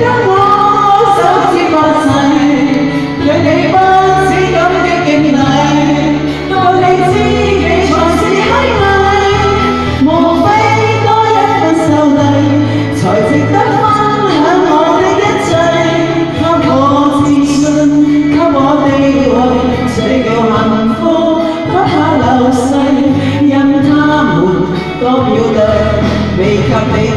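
A woman singing a pop song into a karaoke microphone, her amplified voice carrying the melody over the karaoke backing track with its bass line.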